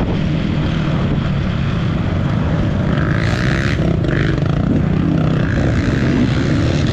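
Off-road motorcycle engine running steadily while riding a dirt trail, with a brief burst of hiss about three seconds in.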